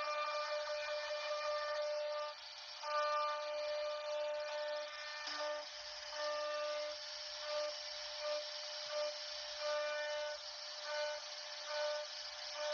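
CNC router spindle whining at a steady pitch while the bit cuts wood, with a hiss of cutting. The tone holds for about two seconds, then comes and goes in short pulses as the cut changes.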